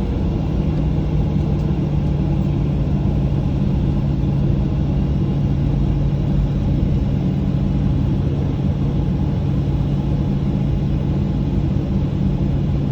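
Jet engines of an airliner heard from inside the cabin: a steady low rumble with a constant hum, not rising or changing.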